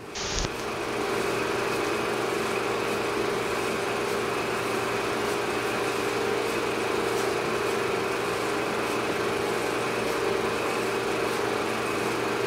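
A steady, unbroken machine-like drone with a low hum and a higher steady tone over an even hiss, after a short break and a brief hiss at the very start.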